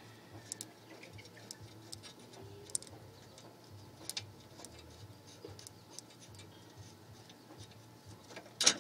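Faint, irregular clicks of a ratchet wrench and metal parts being handled as an already-loosened bolt is worked off the cooling-fan bracket. A louder click-and-knock comes near the end.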